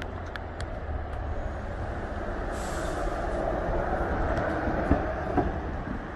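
Steady street traffic rumble that swells for a few seconds as a large vehicle passes, with a short hiss near the middle. A few light clicks come right at the start and two sharp knocks near the end.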